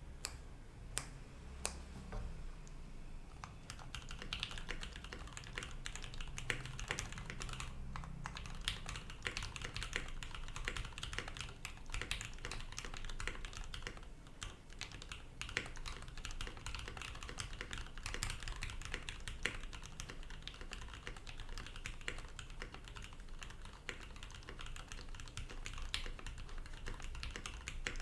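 Mechanical keyboard with lubed retooled Cherry MX Black linear switches on an aluminium plate with PBT keycaps, being typed on. A few separate keystrokes come first, then steady, fast typing runs on from a few seconds in.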